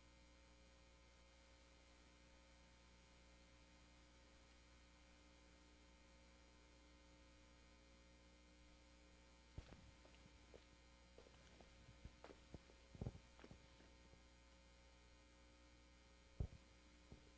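Near silence: a steady low electrical hum, with a few faint scattered knocks starting about halfway through.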